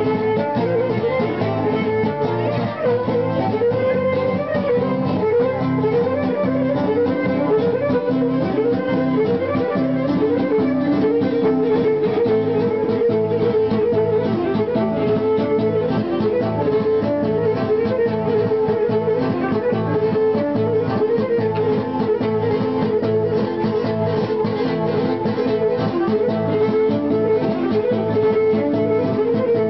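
Live Cretan folk dance music: a bowed lyra plays a fast, ornamented melody over a plucked laouto keeping a steady rhythm.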